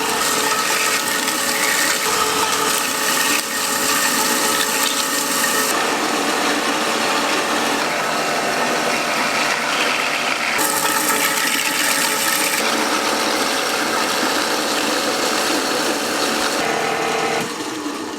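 Factory processing machinery running with a dense, steady mechanical clatter and hum. The sound changes abruptly several times, shifting from one machine sound to another.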